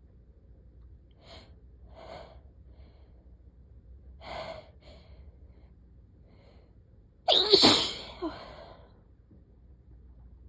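A person's sneeze build-up: a few short catching breaths, then one loud sneeze about seven seconds in.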